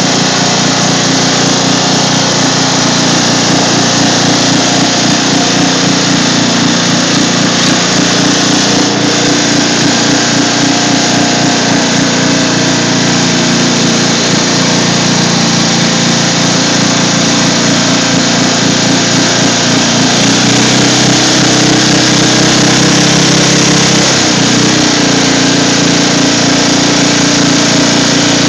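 Riding lawn mower's small engine running loud and steady as the mower drives through deep water, with water splashing around the front wheel. The engine note shifts slightly about two-thirds of the way through.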